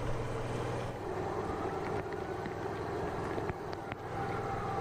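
Floodwater rushing steadily along a curb and gutter in heavy rain, with a few sharp ticks about three and a half seconds in.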